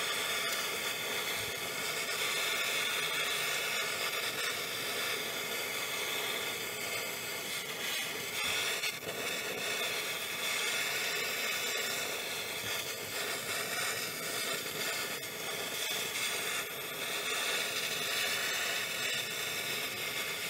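Handheld gas torch burning with a steady hiss as its flame heats the steering knuckle, expanding it for the tight press fit of a ball-joint adapter.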